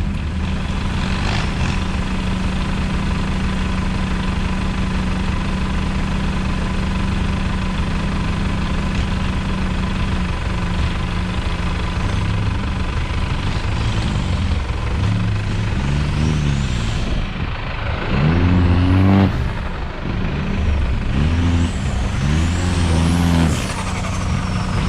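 Suzuki Caribian 4x4's engine running at a steady pitch, then from about ten seconds in revving up and down several times in quick rises and falls.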